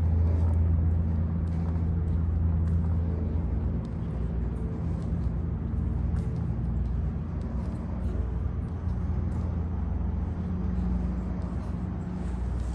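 A motor vehicle's engine running steadily, a low drone that eases a little about four seconds in.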